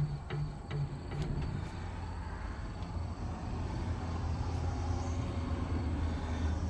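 An engine running steadily, with a few sharp metallic clicks in the first second or so.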